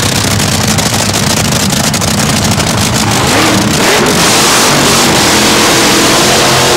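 Top Fuel dragster's supercharged nitro V8 running loud with a dense crackle, rising in pitch about halfway through as it revs and then holding a steady higher note.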